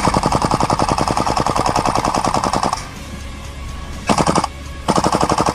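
Airsoft gun firing on full auto in rapid, evenly spaced shots: one long burst of nearly three seconds, then a short burst about four seconds in and another about five seconds in.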